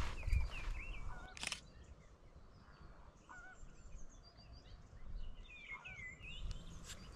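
A flock of water birds calling in scattered short, honking notes that waver in pitch, in two bunches, with one sharp click about a second and a half in.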